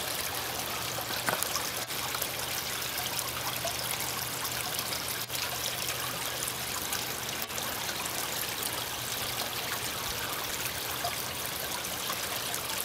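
Small tiered garden fountain: water pouring from bowl to bowl and trickling and splashing into the basin below, a steady even trickle.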